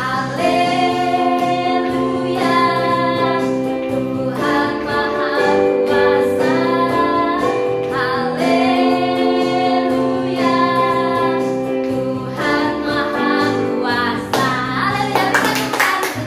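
Two women singing a children's praise song to electronic keyboard accompaniment, with hand claps joining in near the end.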